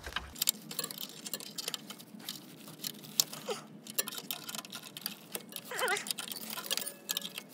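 Irregular light metallic clicks and taps of a combination wrench working the upper steering-rack mounting bolt loose.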